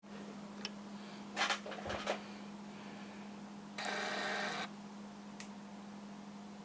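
A few sharp finger snaps or claps, about a second and a half and two seconds in, then a short hissing noise about four seconds in, over a steady low hum: test sounds made to set off a PC case's sound-reactive lighting.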